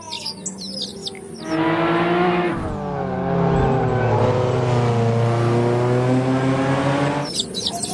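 Race car engine sound: a steady pitched drone starts about a second and a half in, wavers in pitch, and cuts off near the end.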